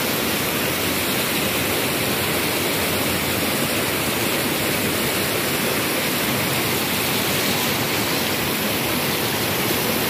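Stream water cascading over rocks in a small waterfall, a steady rushing noise.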